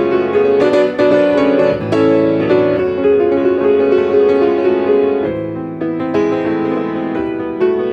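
Solo piano playing a quick passage of many separately struck notes in the middle register, growing somewhat quieter and sparser about five seconds in.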